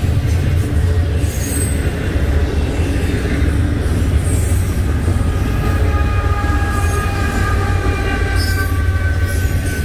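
Double-stack intermodal freight cars rolling past with a steady low rumble. From about halfway in, high thin wheel squeal joins it and holds to near the end.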